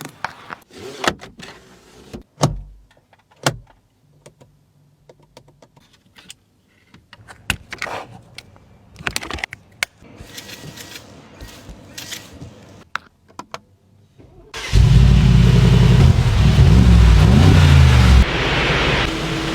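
A series of small clicks and knocks, then about 15 seconds in the Mercedes-AMG G63 4×4²'s twin-turbo V8 starts with a sudden loud burst. It revs up and down for a few seconds, then settles to a lower, steady idle.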